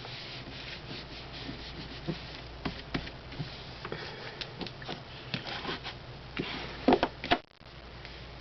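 Paper and cardstock being handled and rubbed against a work surface: irregular rustling and scraping with small taps, and a louder rustle about seven seconds in.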